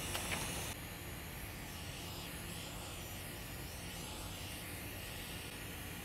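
Steady hiss of hot air blowing from a rework station as it heats a logic board to desolder a chip; it drops slightly in level just under a second in.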